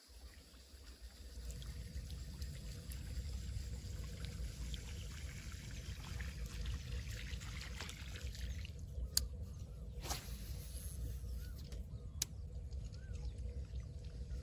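Steady low rumble of wind on the microphone beside open water, with a few sharp clicks in the second half, about nine, ten and twelve seconds in.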